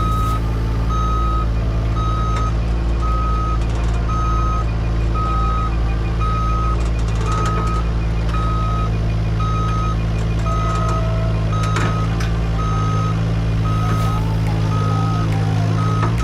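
A heavy machine's reversing alarm beeping steadily, about two beeps a second, over the steady running of its engine as the stuck excavator and truck are worked off the road.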